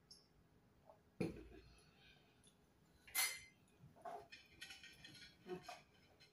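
A dull thump on the table about a second in as a drinking glass is set down, a sharp clink a couple of seconds later, then a run of small clinks and scrapes of a spoon and fork on a plate.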